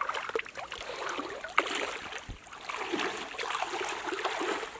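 Water splashing and trickling in irregular spurts, with one sharp, louder splash-like hit about a second and a half in.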